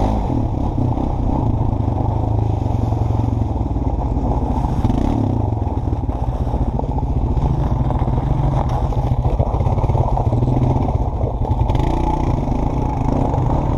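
Honda four-wheeler's engine running steadily under way over a rough, muddy trail, heard from the rider's seat, with some clattering from the ride.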